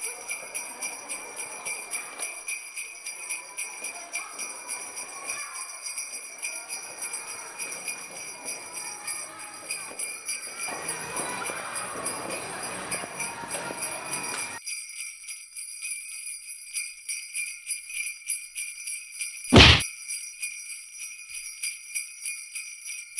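Jingle bells shaken in a steady rhythm, laid over the picture as a soundtrack. Faint room noise under them cuts off abruptly about fifteen seconds in, and a single loud thump comes a few seconds before the end.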